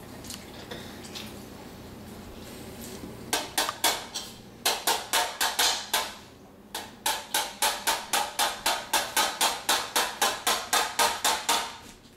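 A metal spoon banging over and over on a metal plate, about four quick clanks a second, starting a few seconds in and pausing briefly midway before carrying on.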